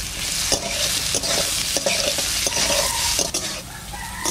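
Potato wedges sizzling in hot oil in an aluminium karahi while a metal spatula stirs them, scraping against the pan about every half second to second. The sizzle eases slightly near the end.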